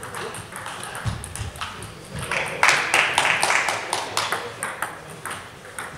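Table tennis balls clicking off bats and tables across a hall with several matches in play, irregular pings throughout. A louder burst of noise lasts about a second in the middle.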